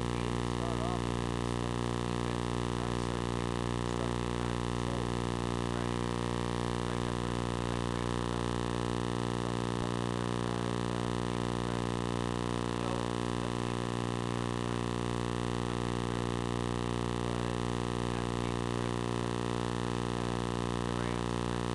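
Steady electrical hum and buzz with many evenly spaced overtones, unchanging throughout and loud enough to bury the voices in the recording.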